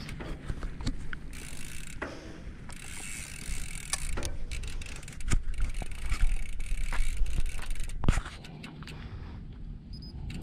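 Wind buffeting a handheld camera's microphone, strongest from about five to eight seconds in, with scattered irregular clicks and knocks from handling.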